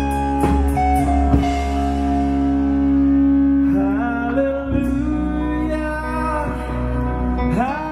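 Live rock band playing: electric guitars and drums with a voice singing, with long held notes and sliding guitar bends.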